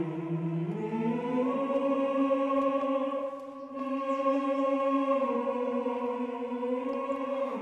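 Background music: a choir of voices holding long, wordless chanted notes, the pitch stepping up about a second in and then held.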